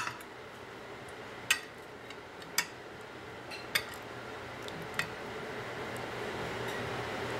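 A metal spoon clinking against a glass baking dish while basting a roast pork loin with its sauce: about five short clinks, roughly a second or so apart.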